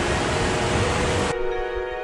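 Rushing stream water over rocks, with soft sustained ambient music over it; the water sound cuts off suddenly about two-thirds of the way through, leaving the music alone.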